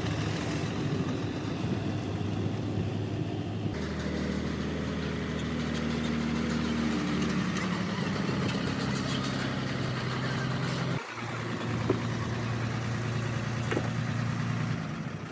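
Diesel engine of a crash-damaged Hino truck running steadily, its tone changing abruptly twice, about four and eleven seconds in. A single sharp click sounds near the end.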